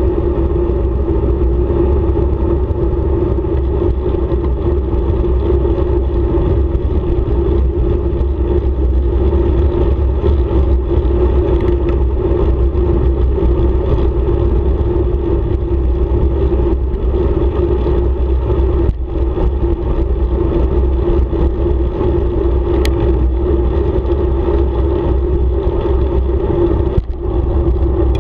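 Wind rushing over a bicycle-mounted camera's microphone on a downhill road descent, mixed with the rumble of bicycle tyres on asphalt. A loud, steady drone that dips briefly twice, about two-thirds of the way in and near the end.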